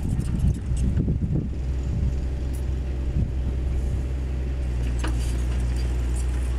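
Heavy diesel construction machinery running with a steady low drone. There are some irregular knocks and clatter in the first second or so.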